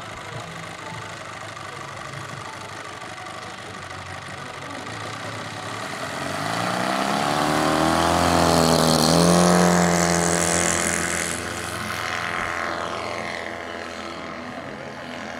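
RC scale model Harvard AT-16's engine running at low throttle as the model taxis, then opening up for the takeoff run about six seconds in. It is loudest as it passes by, then drops in pitch and fades as the model climbs away.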